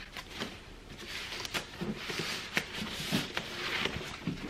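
Foam packing wrap rustling and crackling as it is unwrapped and lifted by hand, in irregular small clicks and scrapes.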